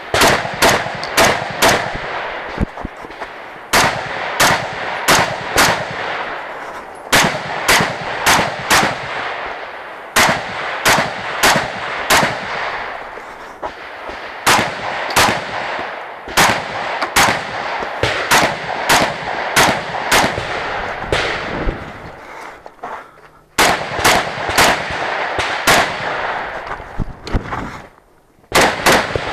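AR-15-style rifle fired close at hand in quick strings of about four or five shots, with pauses of a second or two between strings as the shooter moves between barricades and ports during a timed practical-shooting stage.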